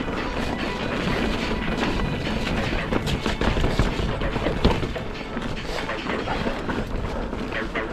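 Mountain bike riding over a rough trail: steady rushing noise of wind and tyres on dirt, with the bike knocking and rattling over bumps many times, the loudest knock a little before the middle.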